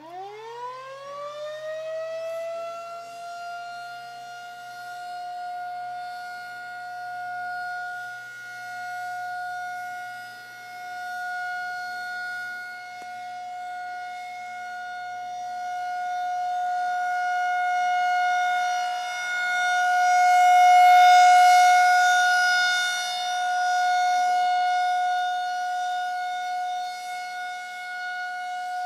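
Federal Signal 2000 tornado warning siren winding up over about three seconds to a steady single tone, sounding for a scheduled test. Its loudness swells and dips every few seconds and is loudest about three-quarters of the way in.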